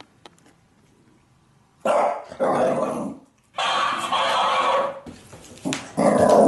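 A Shiba Inu barking in short bursts, answered by a mimicking plush toy that repeats the barks back. The first couple of seconds are quiet before the barking starts.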